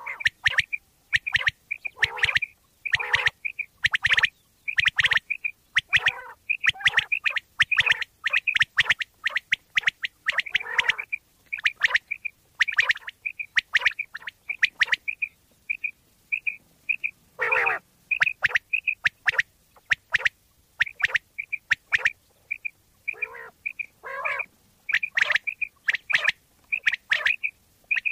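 Common quail calling: a fast, uneven string of short calls, several a second, with some lower, rougher notes mixed in among the higher ones.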